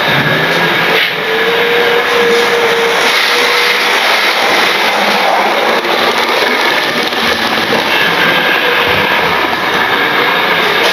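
A model train running on its track, its small electric motor giving a steady whine over the rolling of its wheels on the rails as it passes the camera.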